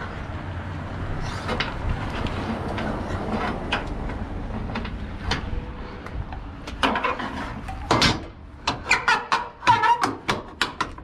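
Metal clanks and knocks from a truck's side door, bar and latches being handled, coming as a quick run of sharp clanks in the last few seconds, the loudest about eight seconds in, over the steady low rumble of the truck.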